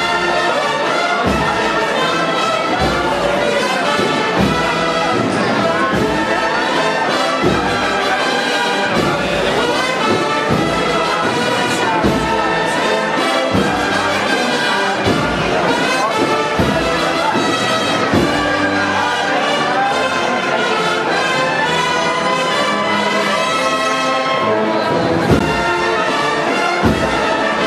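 A processional brass band of trumpets and trombones with drums playing a Holy Week march, with steady drum beats under the melody.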